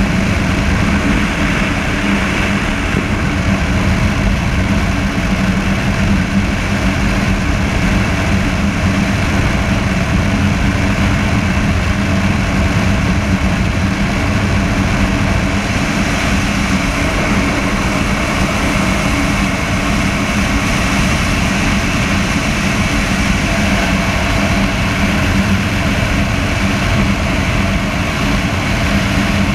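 Honda motorcycle engine running at a steady highway cruise, one even tone with no revving, mixed with wind and road noise as heard from a rider's chest-mounted GoPro.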